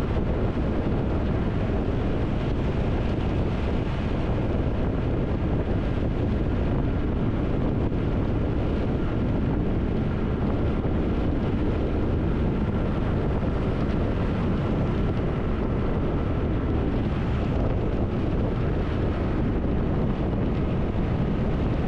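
Triumph Tiger 1200 motorcycle cruising at highway speed: a steady rush of wind on the microphone over the drone of engine and tyres, with a faint steady whine.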